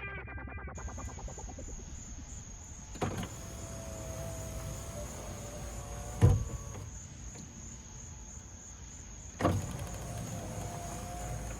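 Power window motor of a MINI Cooper S driving the rear glass on its rebuilt regulator: it starts with a click about three seconds in and whines briefly, there is a loud thump a little past six seconds, and it runs again near the end. A steady high-pitched whine sits underneath.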